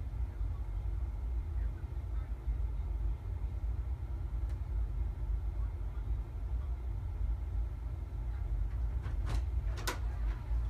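Steady low rumble of room noise, with two sharp knocks near the end, about half a second apart.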